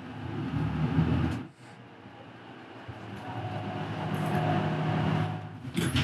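Route bus running, heard from inside the passenger cabin. The sound drops off suddenly about a second and a half in, then builds steadily with a low, even hum.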